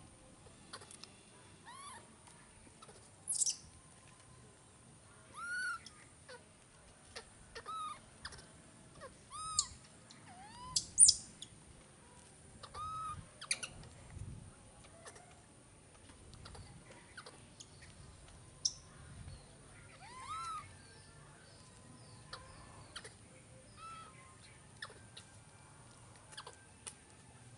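Baby monkeys calling: many short, high calls, each rising then falling in pitch, coming irregularly every second or so, with a few small clicks between them.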